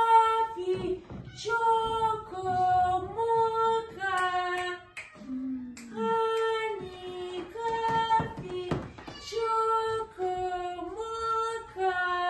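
A woman calling cats in a high sing-song voice: a two-note call that steps down from a higher to a lower held note, repeated over and over.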